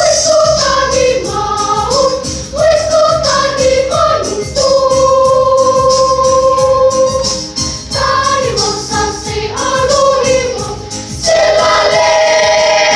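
Church choir singing a gospel song in parts over a steady beat, holding long notes in the middle and again near the end.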